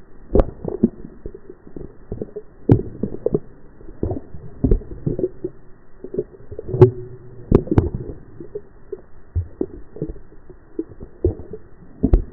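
A rewind sound effect played reversed and slowed down, heard as a low, muffled rumble full of irregular clicks and knocks, a few of them much louder than the rest.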